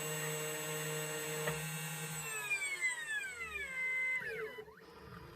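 2M2 Tank CNC key cutting machine's spindle motor running with a steady whine, then spinning down about two seconds in, its pitch falling until it stops as the cut of both sides of the key finishes.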